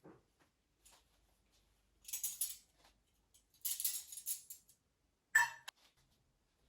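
Household handling sounds: two short bursts of rattling, then a single sharp clink of glass or china about five seconds in.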